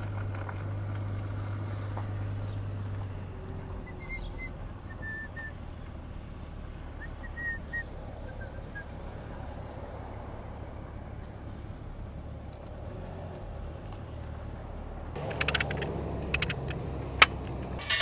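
Pickup truck engine running at low speed with a steady low hum as it pulls in and stops. Near the end come sharp metallic clanks and rattles of the load chain and ratchet binder on the oxygen and acetylene cylinders.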